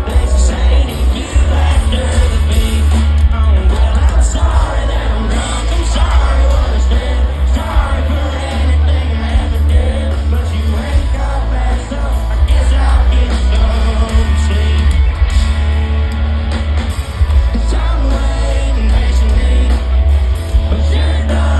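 Live red dirt rock band playing with a lead singer, heard from the audience, with very heavy bass.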